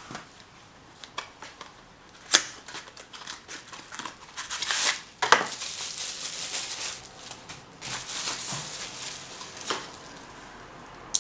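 Replica Pro-Tech 920 Godfather switchblade being handled. Two sharp metallic clicks, about three seconds apart, come from the blade and its mechanism. Between and after them are rustling handling noises and a weaker click.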